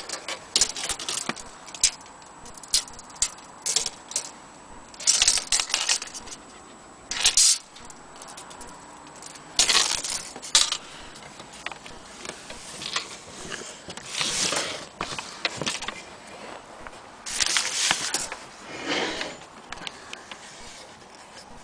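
Handling noise: irregular clicks, rattles and scrapes, with several louder noisy bursts of about a second each. There are no ringing strike tones and no steady ticking.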